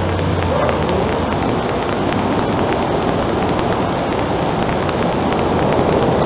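Steady rushing noise with scattered faint ticks, picked up by the low-quality microphone of an outdoor night security camera.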